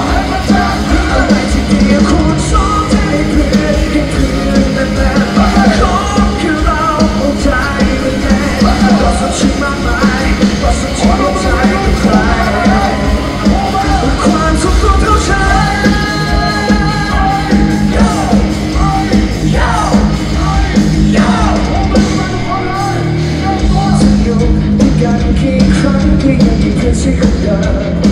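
Live pop-rock band playing loudly through a concert PA, with several vocalists singing into microphones over guitars, keyboard, bass and drums. The bass and kick drum drop out briefly about 22 seconds in, then come back.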